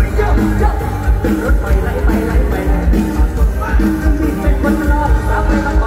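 Live mor lam band music played loud through a stage PA, a steady fast bass-drum beat under a bending melodic line.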